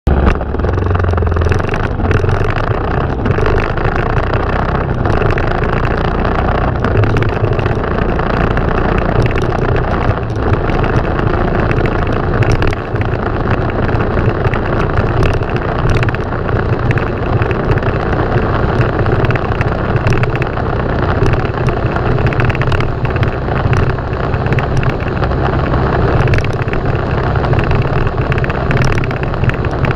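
Kawasaki Super Sherpa trail motorcycle's single-cylinder engine running steadily while riding, with rushing wind noise and scattered small knocks.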